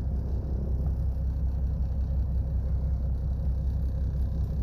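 Steady low rumble of an idling engine, unchanging in level.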